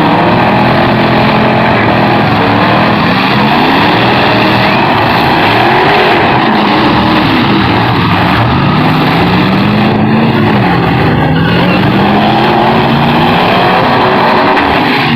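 Several pickup-truck engines revving hard together in a demolition derby, their pitches rising and falling over a dense, steady wash of engine and exhaust noise.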